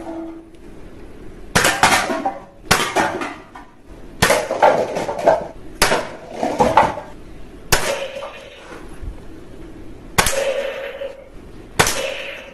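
A series of sharp crashes, about seven in all at uneven intervals, each trailing off in a short clatter like breaking glass.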